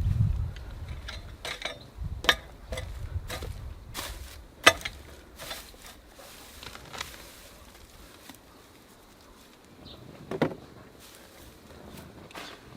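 Irregular knocks, clicks and scrapes of potatoes being dug and handled in hard, dry soil, the loudest knock about five seconds in and another near ten seconds. A low rumble fades out in the first two seconds.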